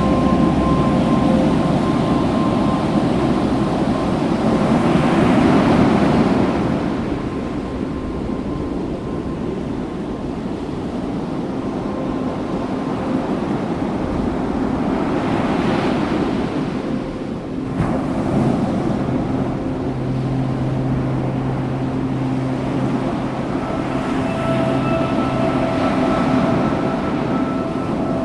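Ocean surf washing ashore in a steady rush, swelling with a wave about five seconds in and again near the middle. A few steady held tones sound underneath and shift pitch about two-thirds of the way through.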